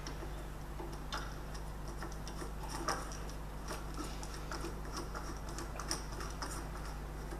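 Light, irregular metallic clicks and ticks as a bolt is fitted and tightened into the cap on top of the tyre changer's main shaft, over a steady low hum.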